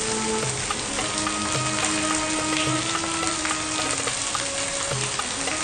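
Steady rain falling on wet paving, an even hiss with scattered drops ticking, under quiet background music.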